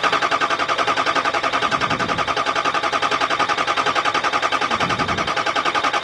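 Starter cranking a 2005 Ford F-350's 6.0 L Power Stroke V8 diesel in a fast, even pulsing rhythm that never speeds up into running: a crank-no-start.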